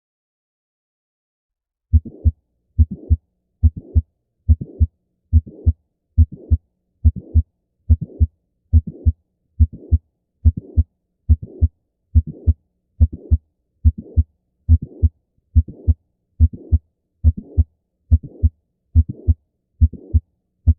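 Recorded heart sounds heard through a stethoscope start about two seconds in, beating regularly at about 70 a minute. Each beat is a lub-dub pair with a murmur filling the gap between the two sounds.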